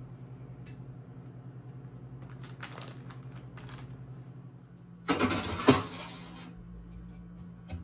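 Kitchen handling noise: a few light clicks, then a burst of clattering and scraping about five seconds in, with two sharp knocks, like utensils or dishes being handled. A steady low hum runs underneath.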